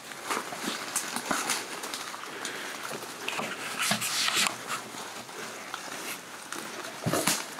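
Footsteps through dry leaves and twigs with brush rustling against clothing, in a slow, halting walk, with louder rustling surges about four seconds in and near the end.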